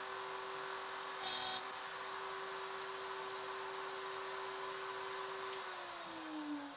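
Table-mounted router running at a steady high-pitched hum, with a brief harsher hiss about a second in as the bit cuts a dovetail socket into the board. Near the end the hum drops in pitch as the router slows down.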